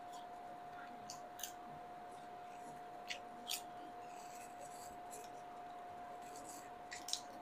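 Faint, crisp crackles and rustles, a few short ones spread out, from fresh lettuce leaves being pulled apart and handled by hand.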